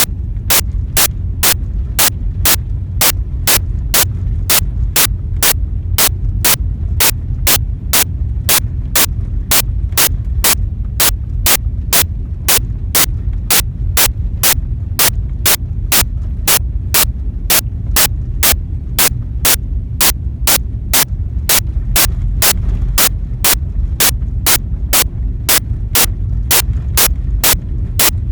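Evenly spaced sharp clicks, about two a second, over a loud steady low rumble.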